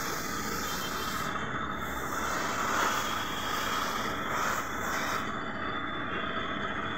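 Compressed-air gravity-feed spray gun hissing steadily as it sprays paint, with a few short dips where the trigger is eased.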